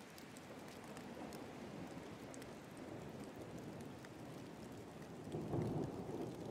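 Steady rain falling, with a low rumble of thunder swelling about five seconds in.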